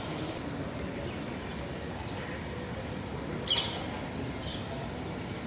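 Parrots giving short, high chirping calls, a handful spaced about a second apart, the loudest about three and a half seconds in, over a steady background noise.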